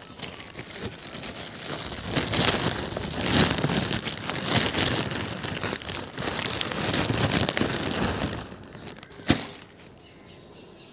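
Plastic courier bag and plastic packaging crinkling and rustling as they are handled and pulled open, in dense irregular crackles. One sharp knock near the end.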